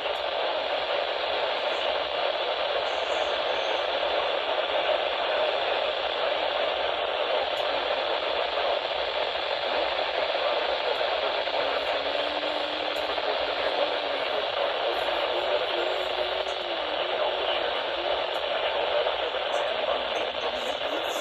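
Weather radio receiver picking up a weak, distant NOAA Weather Radio station: steady static hiss, with a faint voice broadcast barely showing through it from about halfway in.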